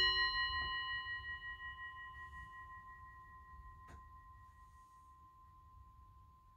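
Singing bowl ringing out after a single strike. Its higher tones fade within a couple of seconds, while one clear middle tone lingers and slowly dies away. A faint tap about four seconds in.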